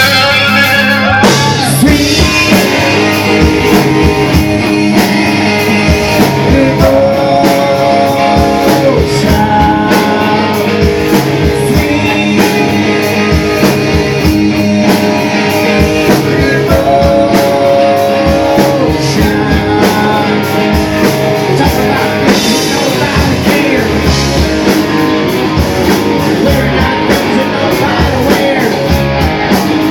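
Rock band playing a song: electric guitar and drum kit with a singer holding long notes.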